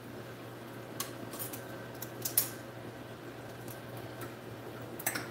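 A few light clicks and taps of a plate and utensils being handled as sliced steak is rearranged on the plate, the sharpest about two seconds in and another near the end, over a low steady hum.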